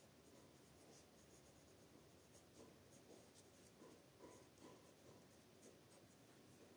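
Near silence: faint room hiss with a few soft, faint ticks.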